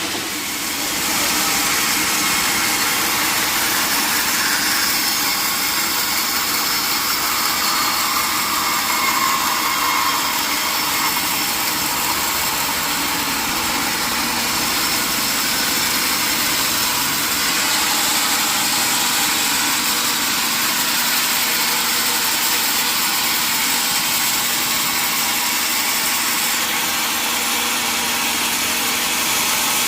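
Sawmill machinery running steadily: an even, continuous mechanical noise with a strong hiss that holds unchanged throughout.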